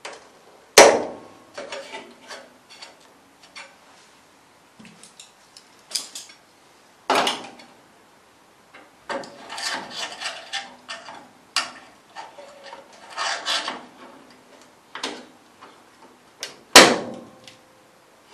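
Locking pliers being worked onto sheet-steel panel flanges: two sharp metallic clacks, about a second in and near the end, as grips snap shut. Smaller clicks, scrapes and rattles of metal tools run between them.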